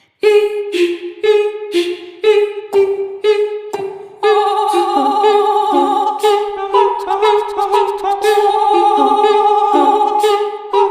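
Voices singing a cappella, imitating instrumental music: short clipped notes about twice a second, then from about four seconds in a held melody over a second voice part.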